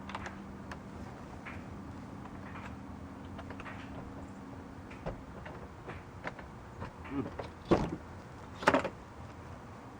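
A steady low hum that cuts off about five seconds in, then scattered clicks and two loud clunks about a second apart near the end.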